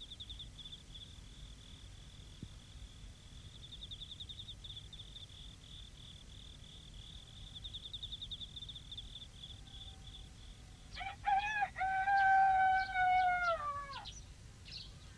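A faint, steady, high-pitched trill of night insects, pulsing evenly. About eleven seconds in, a rooster crows once, a long loud call that drops away at the end.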